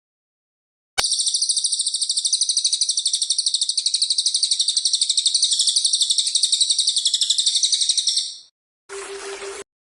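A recorded wild bird's continuous, fast, even high-pitched trill lasting about seven seconds, starting after a click and fading out, played as tutoring song for caged songbirds. Near the end, a short burst of hiss with a low hum.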